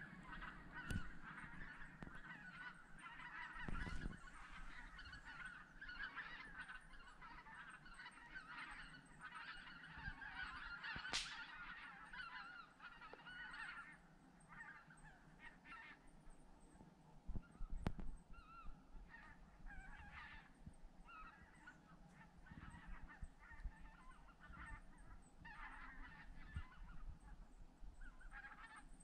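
A large flock of migrating birds passing overhead in skeins, many faint calls overlapping thickly at first and thinning to scattered calls from about halfway through.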